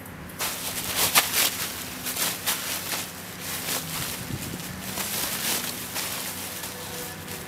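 DD 3x3 tarp being unfolded and shaken out, its fabric rustling and flapping in irregular crackles. It starts about half a second in and is loudest about a second in.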